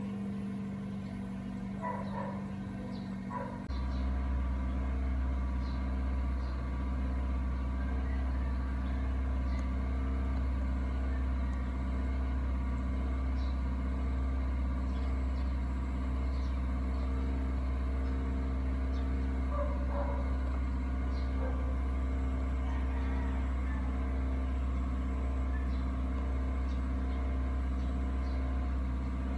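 A steady, low mechanical drone like a running engine or motor, which starts abruptly about four seconds in and holds unchanged, with faint short ticks scattered above it.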